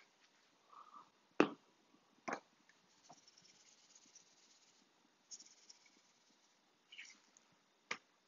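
Seasoning being shaken out of a shaker can onto raw chicken, a soft hissing sprinkle, with a few sharp clicks and knocks from the seasoning containers being handled, the loudest about a second and a half in.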